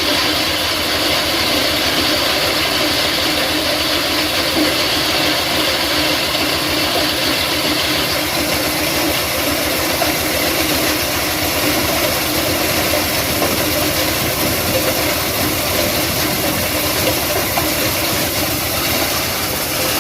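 Stone-crushing machine for making sand running steadily: a dense, even mechanical noise with a fast pulsing in the low end.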